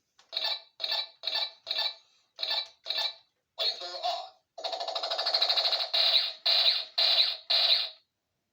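Battery-powered 1990s toy robot's electronic sound effects from its small speaker, the sound of its shoot function: six short beeping bursts about two a second, then a longer warbling buzz, then four more bursts.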